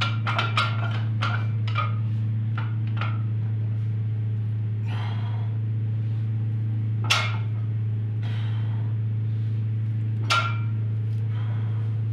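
Loaded barbell with bumper plates clinking and knocking as it is pulled off the floor in a deadlift: a quick cluster of metallic knocks in the first few seconds, then single ringing clinks twice later as the bar is held. A steady low hum sits underneath.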